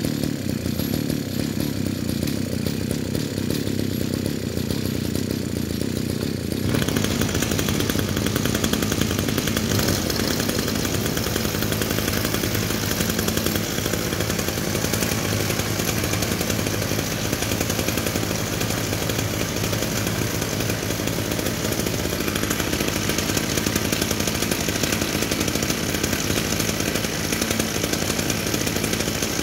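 Small two-stroke brush cutter engines running at idle. About seven seconds in, a second engine joins and the sound becomes louder and brighter, then holds steady.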